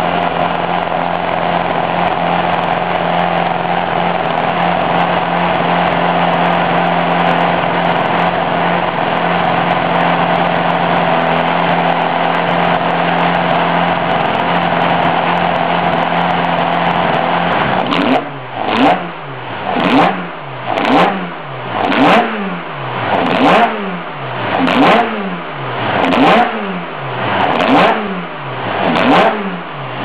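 Race-prepared Alfa Romeo 2.0-litre four-cylinder engine with individual throttle bodies, heard at its open intake trumpets. It holds a steady speed for about eighteen seconds, then is blipped repeatedly, about nine quick revs that rise and fall roughly once every second and a half.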